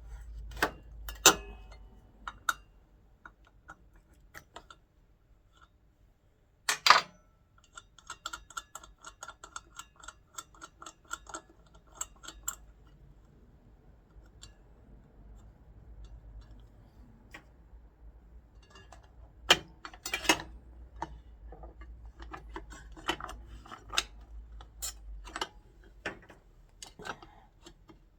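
Clicks, knocks and metallic clinks of hand tools and parts while a Milwaukee cordless mitre saw is taken apart, with sharp knocks about one and about seven seconds in, the loudest near seven seconds. A spell of fast, ringing ticking runs from about eight to twelve seconds in, and more scattered clicks come near the end.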